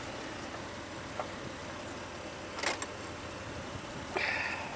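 Jeep engine idling steadily, with a couple of sharp clicks, one just after a second in and a louder one in the middle, and a short higher-pitched rattle near the end.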